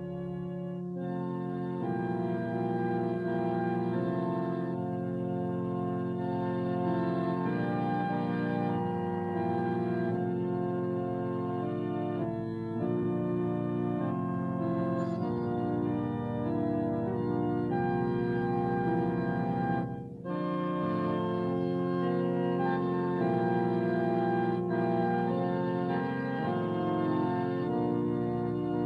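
Organ playing music in sustained, held chords that shift from one to the next, with a brief break about twenty seconds in.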